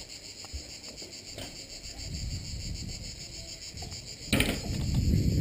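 Steady high-pitched insect chorus over a low rumble of wind on the microphone. A short rustling burst comes about four seconds in, after which the rumble is louder.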